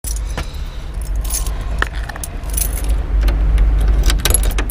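A bunch of keys jangling and clinking in short bursts, over a steady low rumble.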